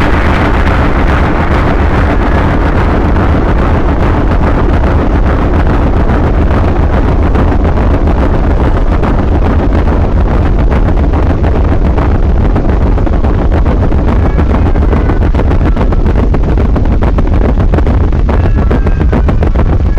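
Loud, unbroken wall of distorted electronic noise with a heavy low rumble. A few faint pitched notes show through it near the end.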